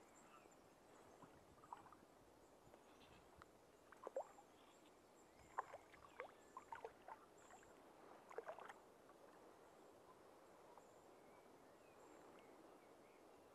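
Near silence, broken between about four and nine seconds in by a cluster of faint, irregular ticks and small splashes as fly line and a small hooked fish are handled at the water's edge.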